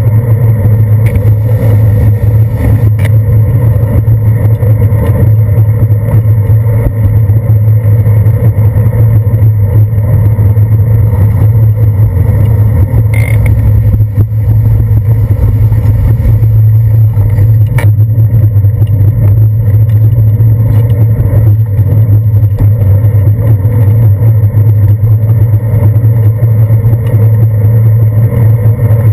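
Riding noise from a bicycle on wet pavement, heard through a handlebar-mounted GoPro Hero 2 in its sealed housing: a loud, steady low hum and rumble from road vibration and wind, with a few brief clicks from bumps.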